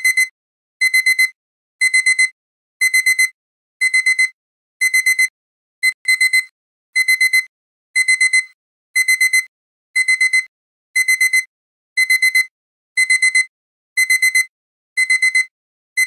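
Digital timer alarm beeping: a quick cluster of high-pitched electronic beeps about once a second, repeating steadily. It is the finishing alarm of a countdown timer that has reached zero.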